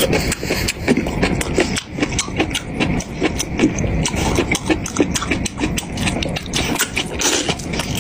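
Close-miked eating sounds: rapid, uneven crunching and mouth clicks of someone chewing food.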